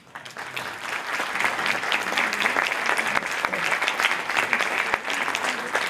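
A large audience applauding: many hands clapping together, building up within the first second and then holding steady.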